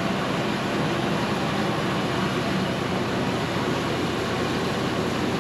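Diesel engine of a Cook's AC-36 sawmill running steadily.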